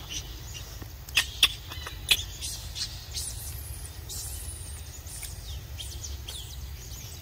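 Birds chirping in the trees: many short, high chirps and quick sliding notes, with three sharp, loud chirps in the first two seconds.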